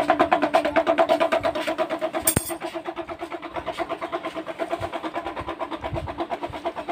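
An engine running steadily with a rapid, even pulsing beat, about seven pulses a second, easing slightly after a couple of seconds. A sharp click about two seconds in.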